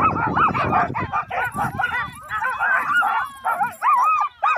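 Alaskan huskies in sled-team harness yelping and barking, many voices in a rapid, overlapping chorus, while the team stands stopped in the snow.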